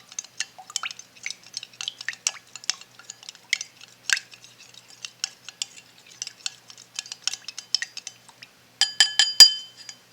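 A spoon stirring vegetable oil and food colouring in a drinking glass, with rapid light clinks against the glass. Near the end come a few loud ringing taps of the spoon on the glass.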